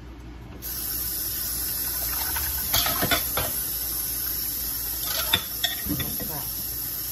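Metal tongs and a spoon knocking against a stainless-steel mesh colander of shredded salt cod, a few sharp clinks around the middle and again a little later, over a steady hiss that comes on about half a second in.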